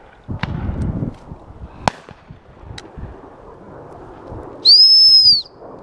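A gundog whistle blown in one long, high, steady blast of just under a second, about five seconds in, its pitch dropping as it stops. Earlier there is a short burst of low rumble and a few sharp cracks.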